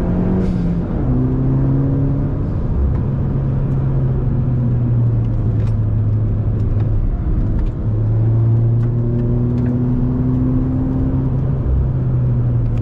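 Inside the cabin of a 2018 Suzuki Swift Sport (1.4 turbo four-cylinder, Stage 1 tune, catback exhaust) driven hard on track. The engine note falls as the throttle lifts near the start, with a short hiss, then holds under load. It dips briefly about seven and a half seconds in and climbs again under acceleration.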